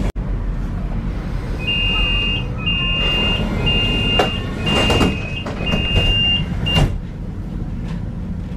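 Tram door-closing warning beeping: a high two-note beep repeating about once a second, six times. A few knocks come during it, the last as the beeping stops. Under it all runs the steady low hum of the tram.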